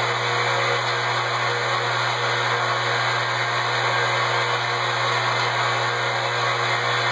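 Steady machine noise from an automated laser marking system: an even whir of fans and air with a low hum underneath, unchanging throughout.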